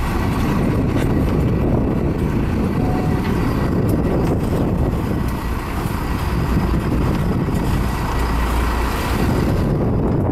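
Sportfishing boat's engine running steadily under way, a dense low drone with water rushing along the hull.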